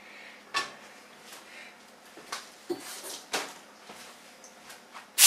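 A few light knocks and clicks of a stainless steel skillet being tilted and set back down on an electric coil burner, with quiet room tone between them.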